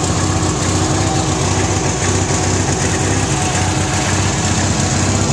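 Ingersoll backhoe's engine idling steadily.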